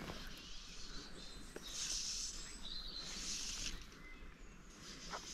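Birds singing: a few short, high-pitched phrases, the loudest about two and three seconds in, over a steady outdoor background hiss.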